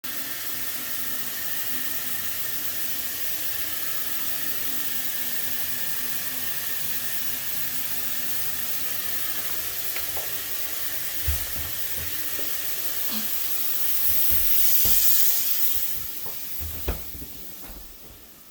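Tap water running steadily into a sink and down the drain, with a few light knocks. It swells near the end, then dies away over the last couple of seconds.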